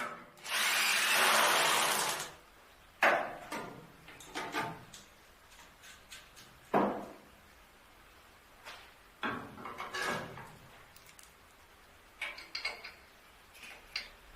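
Workshop tool noise: a power tool runs in one loud burst of about a second and a half, followed by several separate knocks and clatters of tools or parts being handled.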